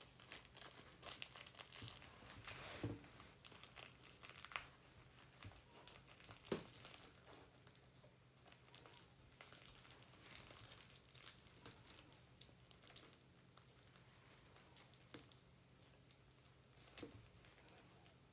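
Clear plastic film crinkling faintly as it is handled, folded and tied around a cloth-wrapped pad, with the crackles thickest in the first few seconds and sparser after.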